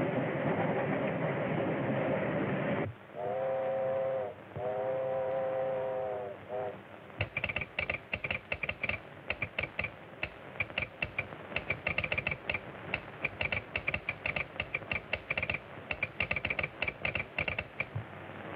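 A steam locomotive running, then its steam whistle blowing several tones at once in two long blasts and a short toot. Then a telegraph key and sounder clatter out rapid Morse code in irregular bursts of sharp clicks.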